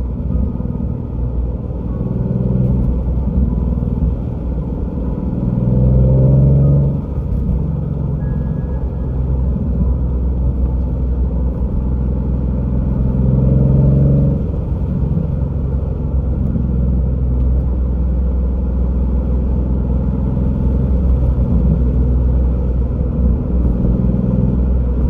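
Nissan 370Z's 3.7-litre V6 running through test pipes while driving, a steady low exhaust drone that swells and rises in pitch under two short pulls, about a quarter and half way through, each ending with an abrupt lift off the throttle.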